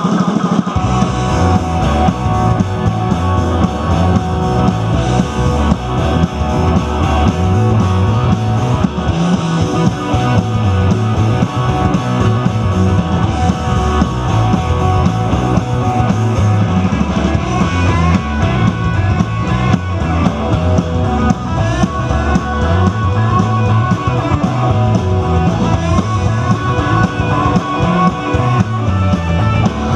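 Live rock band playing through PA speakers: electric guitars, bass guitar and drum kit, with a steady beat.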